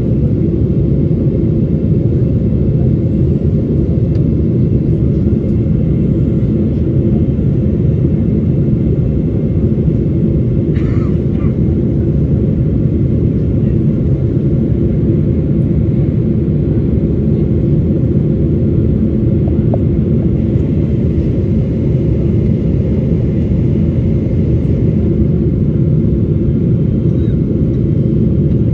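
Steady low drone of a jet airliner's cabin in flight: engine and airflow noise heard from a window seat beside the engine.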